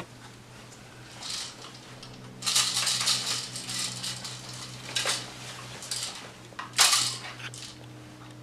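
Rattling, clattering and rustling from a person moving and handling gear, in irregular bursts with the loudest near the end, over a steady low hum.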